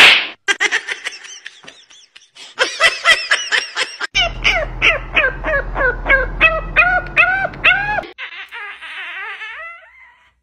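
French bulldog puppy yipping in a rapid string of short, high, rising-and-falling cries, about three a second, ending in a longer wavering whine near the end.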